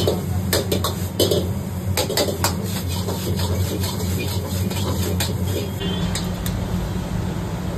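A metal ladle clattering and scraping in a carbon-steel wok as noodles are stir-fried and tossed, over the steady low roar of a gas wok burner. The clatters stop about five seconds in, leaving only the steady roar.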